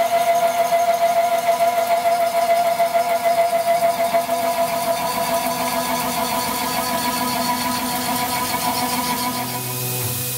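A 4-inch side milling cutter on an arbor in a Tormach CNC mill cutting aluminium: a steady whine of several tones with a fast pulsing flutter. It is a side pass with room for the chips to clear, not a full slot. Near the end the sound changes to a steadier, lower hum.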